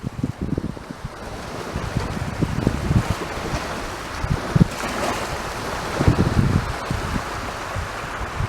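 Sea waves breaking and washing up the beach, the surf hiss swelling about a second and a half in, with gusts of wind buffeting the microphone.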